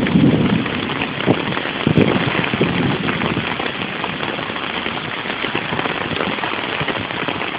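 Heavy rain falling steadily, with a big pickup truck's engine running as it creeps slowly through deep floodwater. The truck gets quieter over the first few seconds, and a couple of sharp knocks come near the start.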